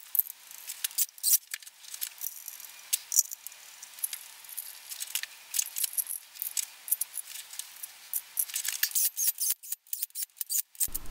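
Light, irregular metallic clicks and small rattles from hand tools and small metal parts being handled at an engine block, with no steady rhythm.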